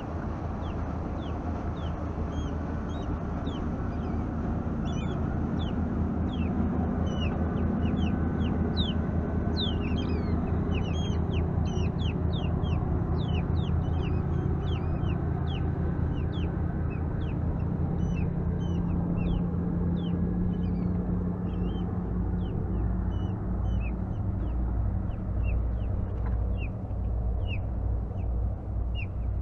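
Many short, falling bird chirps, several a second, over the low rumble of a passing motorboat's engine and wind on the microphone.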